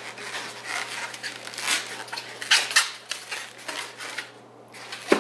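Inflated latex modelling balloons being handled and twisted, the rubber rubbing and scraping in short irregular strokes, with a short knock near the end.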